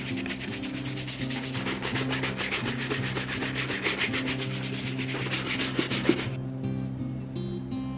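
Quick, even back-and-forth hand rubbing on a boot, about six or seven strokes a second, stopping abruptly about six seconds in. Background music plays underneath.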